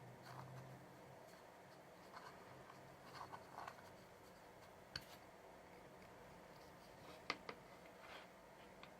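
Faint handling of a small product and its packaging: soft rustles and a few light clicks, the sharpest about seven seconds in.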